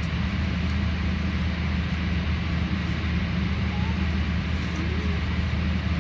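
Steady low drone of cabin noise inside a jet airliner on the ground, from the aircraft's running systems and air conditioning.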